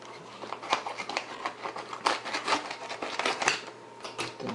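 Scissors cutting open a sealed foil packaging bag, with a run of short crackly snips and foil crinkling as the bag is handled.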